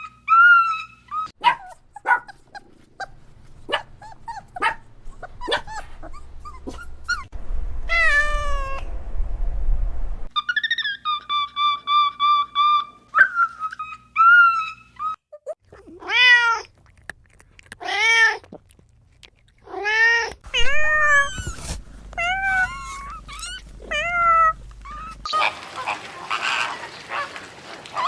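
Cats meowing over and over, short rising-and-falling calls one after another, with a few steady whistle-like tones in between. A raspy, noisy sound comes in near the end.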